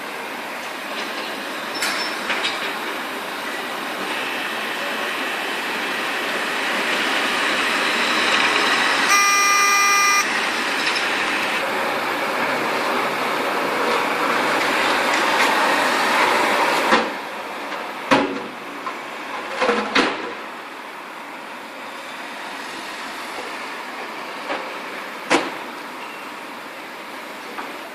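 Road traffic passing, a haze of tyre and engine noise that swells and fades as vehicles go by. A horn sounds for about a second a third of the way in, and a few sharp knocks come about two-thirds of the way in.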